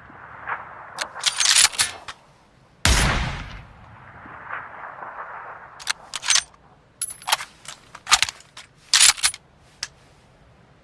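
M24 sniper rifle, a bolt-action 7.62×51mm NATO rifle: one shot about three seconds in with a long fading tail. Before and after it come clusters of short sharp metallic clicks, the bolt being worked.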